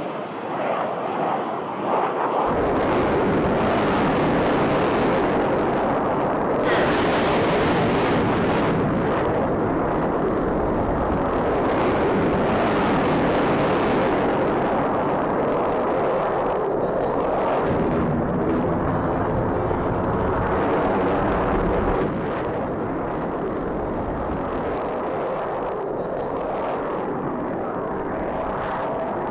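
Jet noise from an F-22 Raptor's twin Pratt & Whitney F119 afterburning turbofans during a low, fast pass. It is a loud, steady rush with a deep rumble that comes in sharply about two seconds in and eases off a little about 22 seconds in.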